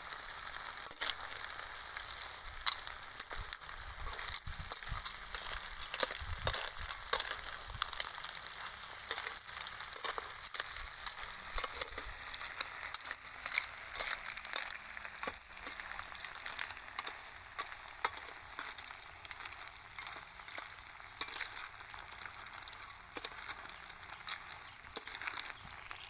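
Rice-field snails and green onion sizzling in a pan over a charcoal stove: a steady hiss with frequent sharp crackles and clicks, and a metal ladle stirring through the shells.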